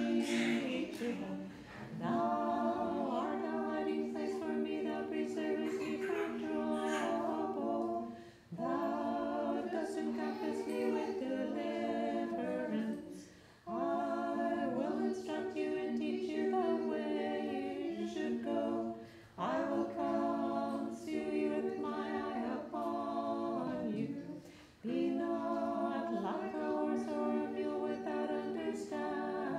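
Unaccompanied Orthodox liturgical chant sung by a small group of voices in harmony. It comes in phrases a few seconds long, with short breaks between them.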